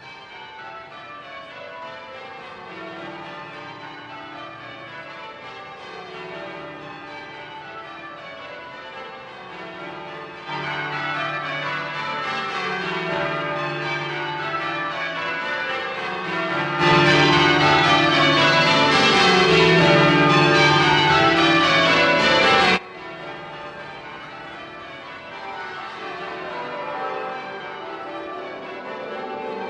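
Church tower bells rung full-circle on ropes, change ringing, the bells striking one after another in repeated rows from highest to lowest. The sound grows louder about a third of the way in, louder again past halfway, then drops back suddenly about three-quarters through.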